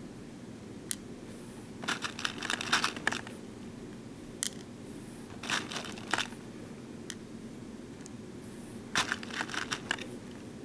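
Small plastic BeadOs beads clicking and rattling as they are picked from a plastic sorting tray and set on a plastic pegboard, in several short flurries of light clicks. A faint steady hum lies underneath.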